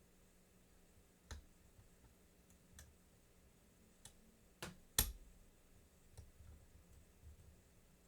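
Lock pick and tension wrench working the pins of an American Lock 1100 padlock: scattered faint metallic clicks, about six in all, with the loudest about five seconds in.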